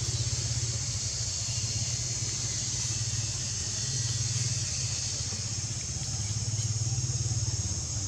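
A steady low engine drone, like a nearby vehicle running, under a constant high-pitched hiss.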